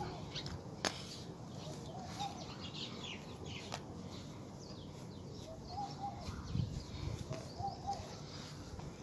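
Birds calling: a short repeated call phrase every second or two, with fainter higher chirps, and a single light click about a second in.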